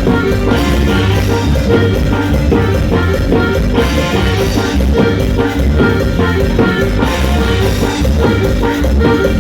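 Latin dance music playing at full level, with drums and bass keeping a steady beat.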